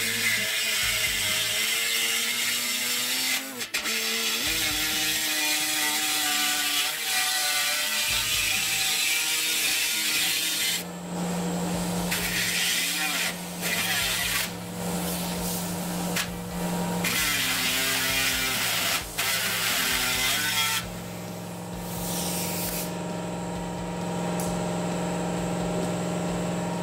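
Handheld pneumatic reciprocating air saw cutting through the sheet-steel top dash rail of a classic Mini. It runs loudly in long stretches with several short pauses, and stops about 21 seconds in, leaving a quieter steady hum.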